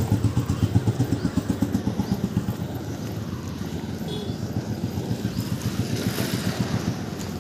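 Motorcycle engine running at road speed with road and wind noise, its thrum strongest in the first couple of seconds before easing to a steadier rumble. Another motorcycle passes close by about six seconds in.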